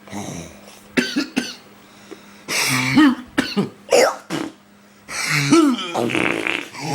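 A person in a coughing fit, coughing over and over in about four clusters of harsh bursts.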